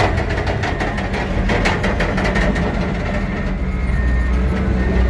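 Bulldozer's diesel engine running steadily with a deep hum. For the first two seconds or so it is joined by a quick run of metallic clanks, several a second, that then die away.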